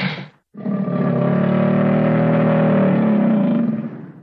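American alligator bellowing: the tail of one bellow breaks off, then after a short pause comes one long, low bellow of about three and a half seconds that fades near the end.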